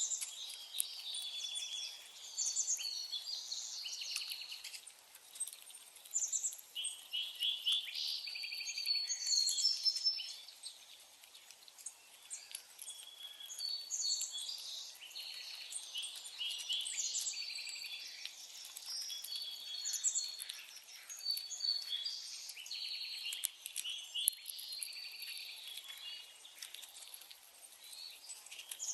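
Several songbirds singing and chirping at once, a steady chorus of short overlapping trills and high chirps with no pause.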